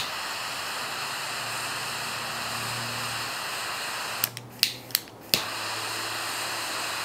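Cohiba jet torch lighter burning with a steady hissing flame while toasting the foot of a cigar. About four seconds in, the flame cuts out for about a second with a few sharp igniter clicks, then hisses on again.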